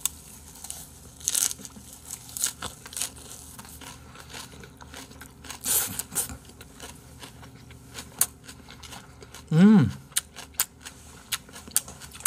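Close-miked chewing of crisp salad greens dressed with chili sauce: scattered wet crunches and mouth clicks, with light chopstick clicks. About ten seconds in comes a brief hummed "mm" that bends up and down in pitch, the loudest sound.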